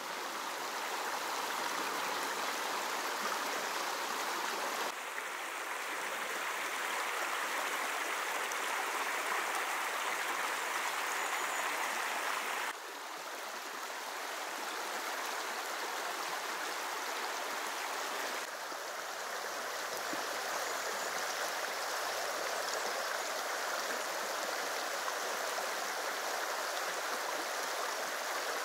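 A small brook running steadily over stones, a constant wash of water noise whose level steps abruptly up or down three times.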